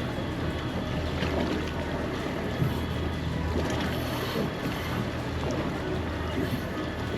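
Boat's twin Mercury Verado V8 outboards running steadily, with wind and water noise.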